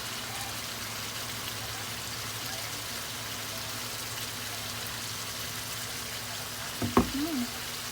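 Chilli spice paste for balado sizzling steadily in a frying pan. Near the end there is a short knock, then a brief hum.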